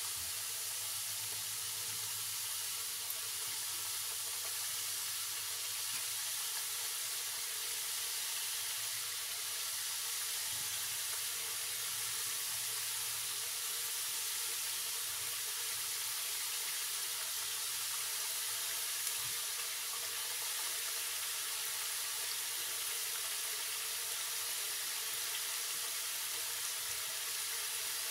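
Namak para dough pieces deep-frying in a wok of hot oil: a steady sizzle with fine bubbling.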